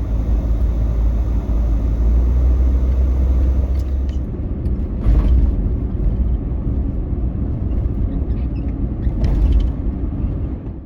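Steady low rumble of a car driving on the road, with a couple of brief louder swells; it cuts off abruptly at the end.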